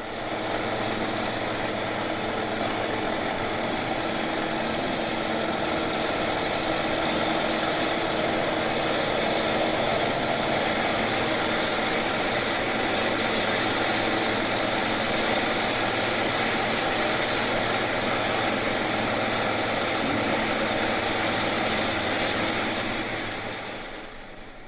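A heavy engine running steadily, a constant hum over a broad noisy wash, starting abruptly and fading out near the end.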